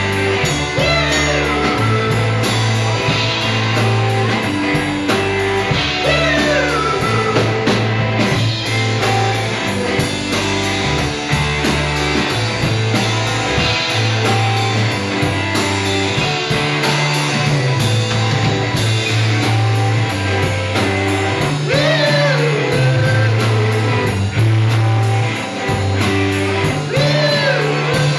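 Live rock band playing: electric guitars, bass guitar and drum kit, with a steadily stepping bass line under the guitars.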